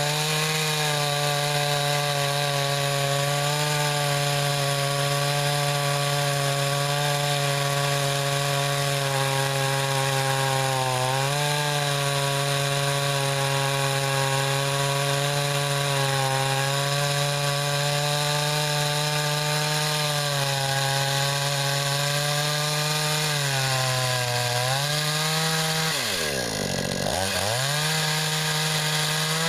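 Chainsaw running at high revs, cutting through a pecan log. The engine note holds steady with brief dips in pitch, then sags sharply and climbs back up near the end.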